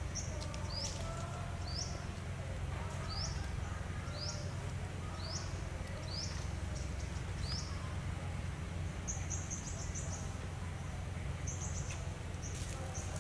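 A bird calling over and over, a short rising chirp about once a second, then switching to quick runs of high trilled notes about nine seconds in and again near the end, over a steady low background rumble.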